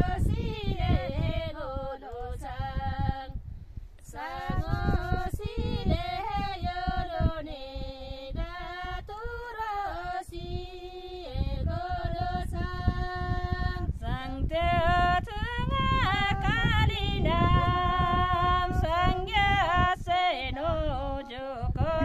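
A group of women singing a Kinnauri folk song a cappella, with no instruments. The singing breaks off briefly about three seconds in, then carries on.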